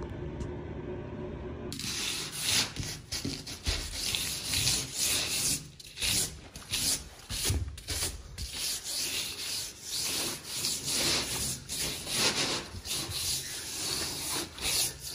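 A low steady hum, then from about two seconds in, close-up rubbing and scuffing against a surface right at the microphone, in irregular uneven strokes.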